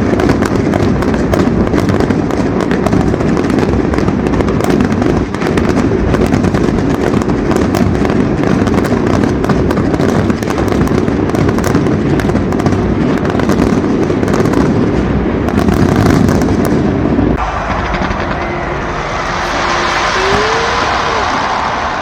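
Fireworks going off in a rapid, continuous barrage of pops, crackles and bangs, a dense finale-style salvo. It cuts off suddenly about seventeen seconds in.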